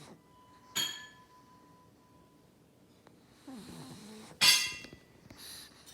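A pug snoring in its sleep: a raspy drawn-in snore about three and a half seconds in ends in a loud, sharp snort, followed by a softer hissing breath out. About a second in comes a short sharp clink that rings briefly.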